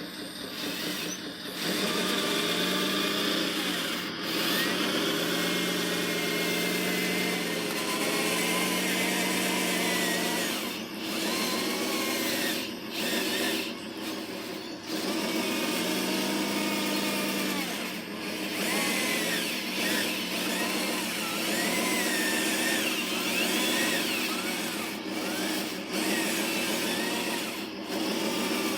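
Electric motors and gearboxes of radio-controlled construction vehicle models whining. The pitch rises and falls as they speed up and slow down, with several brief stops.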